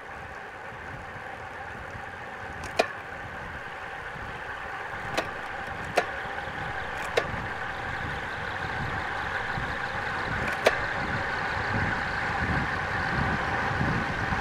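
Road bike descending at speed: rushing wind and tyre hum on the bike-mounted camera, building steadily as speed rises, with gusts buffeting the microphone near the end. A handful of sharp clicks or knocks cut through, as over bumps in the road.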